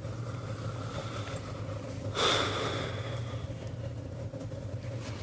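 Steady low hum of room tone, with one short breathy rush about two seconds in.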